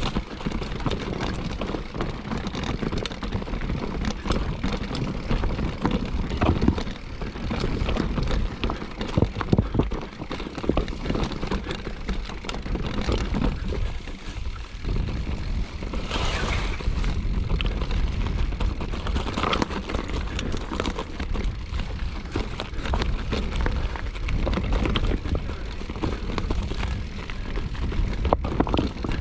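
A mountain bike riding a rough trail: steady wind rumble on the microphone with frequent rattles and knocks from the bike over uneven ground.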